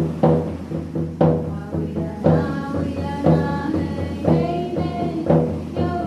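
Hand-held frame drums (medicine drums) beaten in a slow, steady pulse, about one stroke a second, with women singing over the beat.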